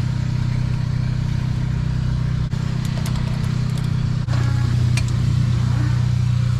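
Heavy diesel truck engine idling with a steady low hum, and a few light metal tool clinks in the middle.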